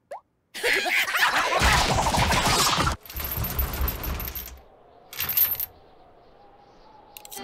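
Cartoon sound effects: a loud, rapid rattling clatter for about two and a half seconds, then softer rattling and one short clank about five seconds in, as a padlocked, chained metal door is tugged.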